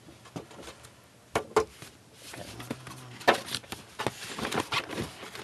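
Cardboard box being handled and opened by hand: scattered taps and knocks of the box and its flaps with a rustle of cardboard, busier in the second half, the sharpest knock about three seconds in.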